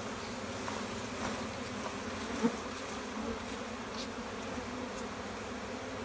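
A disturbed swarm of honeybees buzzing steadily while their comb is moved into a hive box, with one brief knock about two and a half seconds in.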